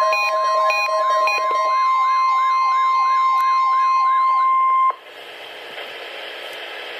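NOAA weather radio warning alarm: a steady single tone of about 1 kHz, the 1050 Hz weather-radio alert tone, sent as the weekly test of the warning device. Electronic alarm beeps and a repeating warbling sweep sound over it. The tone cuts off suddenly about five seconds in, leaving steady radio hiss.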